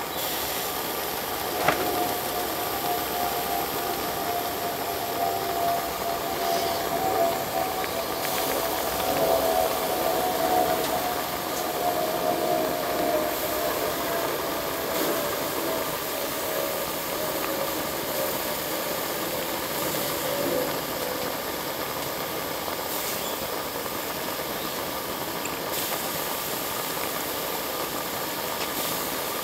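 Saito V4PR model V-four live steam engine running under steam: a steady hiss with a thin whine that slowly falls in pitch over the first twenty seconds or so. A sharp click about two seconds in.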